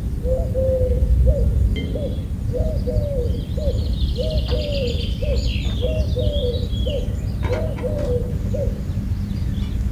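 A dove cooing over and over in short hooked notes, with small birds chirping high above it through the middle, over a steady low rumble. A single clink sounds near the end as a glass lid is set on the wok.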